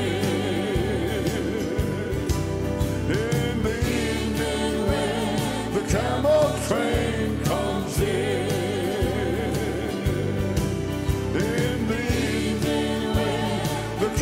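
Live gospel song: a vocal group singing with vibrato over piano and drums.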